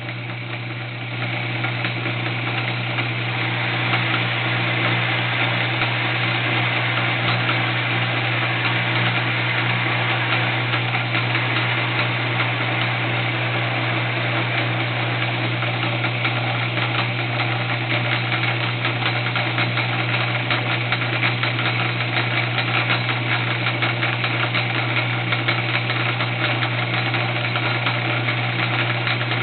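Home-built horizontal milling machine's belt-driven spindle running as a lathe, turning an arbor with a bolted-down tool bit: a steady motor hum with cutting noise over it, growing louder over the first few seconds. It is taking a 40-thousandths cut smoothly, without chatter.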